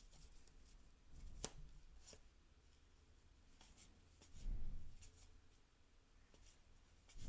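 Baseball cards being handled and flipped through by hand: faint scattered papery ticks and slides, with a soft low thud about four and a half seconds in.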